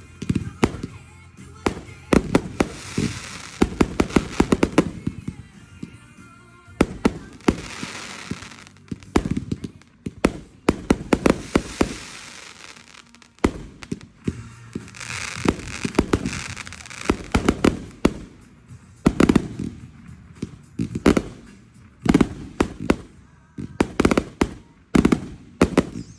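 Fireworks going off: rapid clusters of sharp pops and bangs, one burst after another, with crackling between them.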